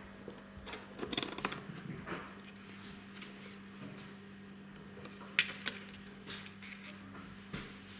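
A cardboard box rustling and scraping on a tile floor as a kitten climbs into and out of it, with scattered light taps and a sharp knock about five seconds in.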